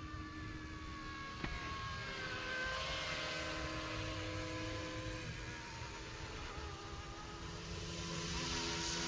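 YXZNRC F09 Black Hawk RC helicopter flying overhead: the whine of its electric motor and rotors, several tones wavering up and down in pitch as the throttle changes. There is a single click about one and a half seconds in, and the sound grows louder near the end.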